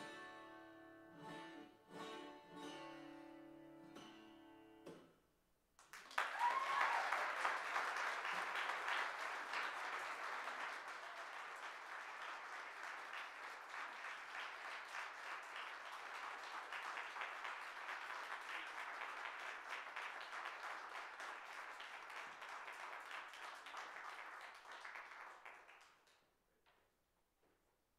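Acoustic guitar finishing a solo piece with a few last plucked notes and a held final chord, then a brief pause. After that the audience applauds steadily for about twenty seconds before the clapping dies away.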